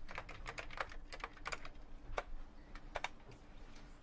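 Typing on a computer keyboard: irregular key clicks in quick runs, thinning out in the second half.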